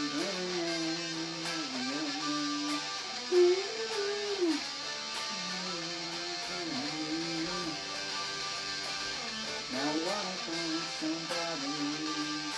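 Guitar music: a lead line of bending, sliding notes over strummed chords, an instrumental break between sung lines of a rock song.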